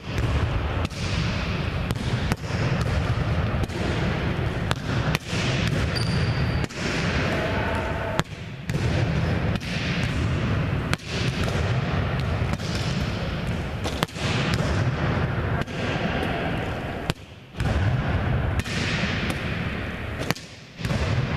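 Volleyballs slapping off forearms and hands and bouncing on a hardwood gym floor, many sharp hits echoing over a constant hall din.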